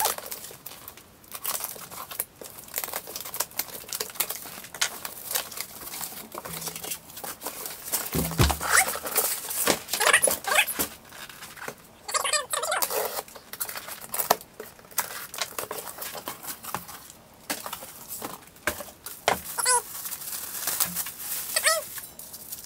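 Cardboard box being cut open and unpacked: a blade slitting packing tape, cardboard flaps rustling, then plastic wrap crinkling around a cast iron wok, with a few short squeaks between.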